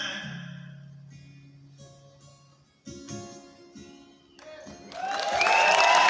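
Final guitar chords of a live band's song ringing out and fading, struck once more about three seconds in. Then the audience breaks into applause that swells, with a long whistle over it.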